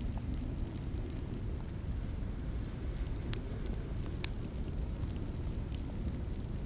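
Fireplace fire burning with a steady low rumble and scattered sharp crackles and pops, two of them standing out a little past the middle.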